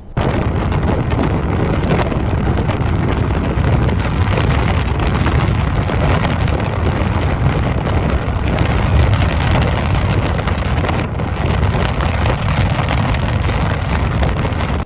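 Strong wind blowing across the microphone: a steady, loud rush with a heavy low rumble, starting abruptly.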